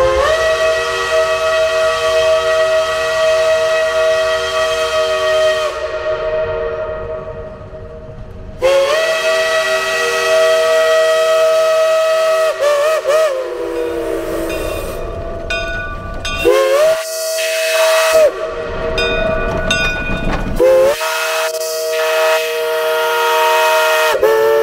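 Chime steam whistle of a Cass Scenic Railroad Shay geared steam locomotive, No. 4, blowing a series of long blasts with a few short toots between them. Each blast opens with a slight upward slur into a chord of several tones, over the hiss of escaping steam.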